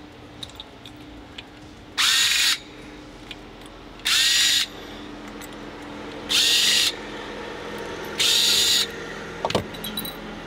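Cordless drill/driver run in four short bursts about two seconds apart, each spinning up quickly, as it drives the screws of an outboard carburetor. A few light clicks follow near the end.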